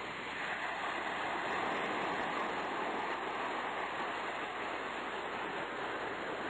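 Steady rushing wash of sea surf, swelling a little about a second in and then holding even.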